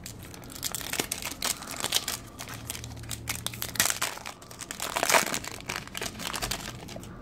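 Foil wrapper of a Panini Diamond Kings baseball card pack being torn open and crinkled by hand: a dense run of sharp crackles, loudest about five seconds in.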